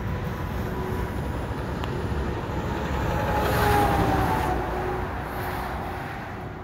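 A vehicle passing on the highway: its tyre and engine noise swells to a peak about four seconds in, with a slight falling pitch as it goes by, then fades back into the steady traffic noise.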